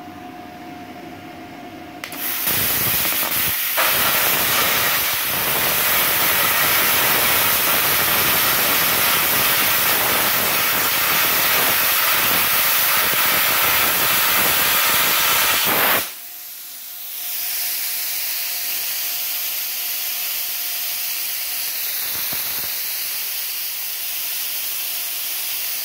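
Multipro CUT 65 air plasma cutter cutting through 10 mm steel bar: a loud, steady hiss of the arc and air jet that starts about two seconds in and cuts off suddenly about sixteen seconds in. After it stops, a quieter steady rush of air keeps blowing from the torch, the post-flow cooling it down.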